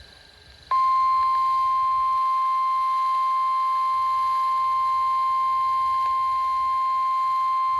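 NOAA Weather Radio / National Weather Service warning alarm: a single steady 1050 Hz alert tone that starts about a second in and holds unbroken. It signals that a new warning broadcast is about to be read.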